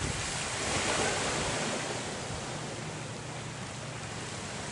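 Wind and small waves on open water: a steady rushing hiss that swells briefly about a second in.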